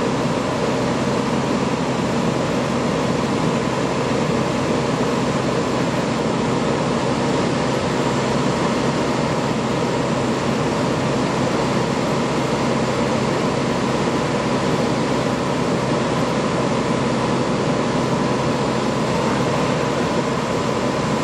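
Steady mechanical drone of running machinery, even and unbroken, with a faint high steady whine over it.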